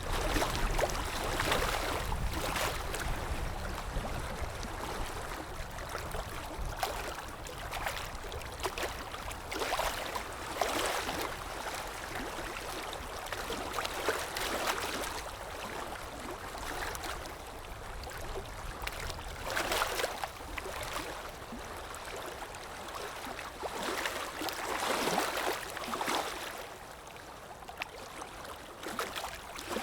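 Water flowing and splashing, rising in irregular surges every second or few.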